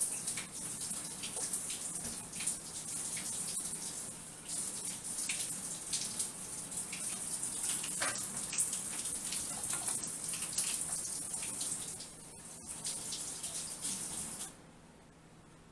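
Kitchen tap running into a sink, a steady splashing hiss with small knocks of things moved under the stream, shut off suddenly near the end.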